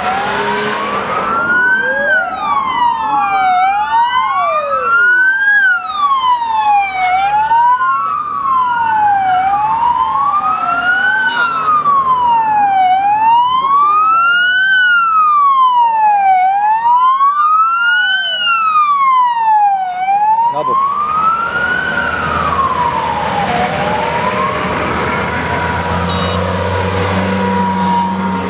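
Escort vehicle siren wailing, rising and falling steadily about once every three seconds, with a second siren sweeping across it in the first few seconds. The siren fades after about twenty seconds as the low rumble of approaching heavy vehicle engines grows.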